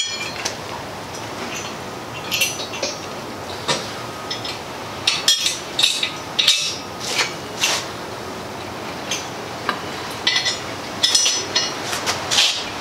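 Steel parts of a compact metal bender clinking and knocking together as the ring assembly is fitted onto its pedestal: irregular metallic clinks, some ringing briefly.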